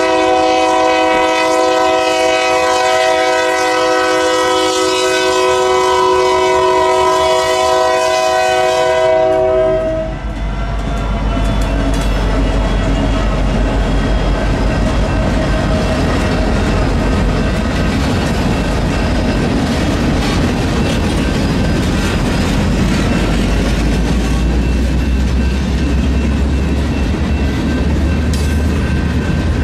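Union Pacific freight locomotive's air horn sounding one long multi-note chord for about nine seconds, then cutting off. The train then rolls past with a low diesel rumble and the steady clickety-clack of freight-car wheels over the rails.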